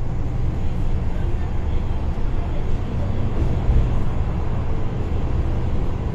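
City bus driving along: a steady low engine and road rumble with even road noise above it.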